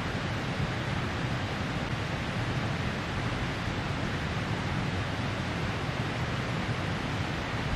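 Steady, even outdoor rushing noise with no distinct events.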